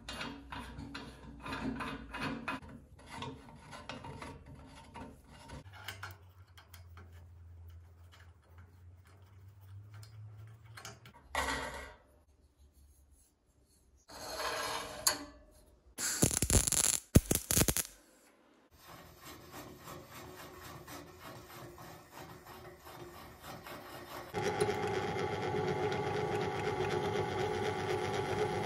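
Steel workshop handling: a threaded steel rod turned and rubbing in a square-tube steel block with small clicks, then several short, loud noisy bursts of metalwork. Near the end a bench drill press motor comes on and runs steadily.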